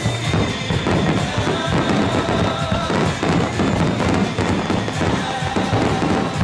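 Fireworks going off in rapid succession, a dense run of bangs and crackles, with music playing along with the display.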